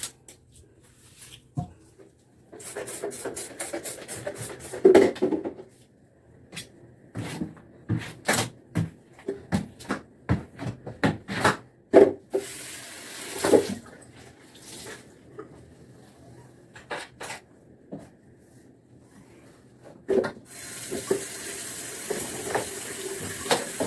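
Handling and cleaning noises at a bathroom washbasin: scattered knocks and clatters of plastic bottles and items on the counter, with a quick run of short strokes a few seconds in. About 20 seconds in, a tap starts running steadily into the basin.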